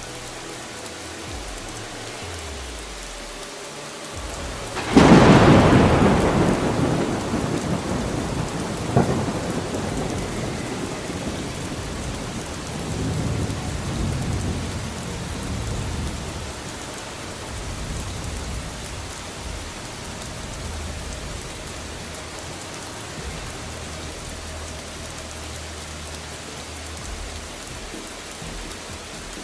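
Steady rain with thunder: about five seconds in, a loud thunderclap cracks and rolls off in a long rumble. A second, smaller crack follows about four seconds later, with more rumbling after it.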